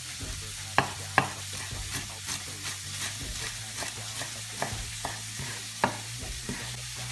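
Chef's knife chopping fresh parsley on a wooden cutting board: a quick run of light taps, with a few louder knocks of the blade on the board, two of them about a second in and one near the end.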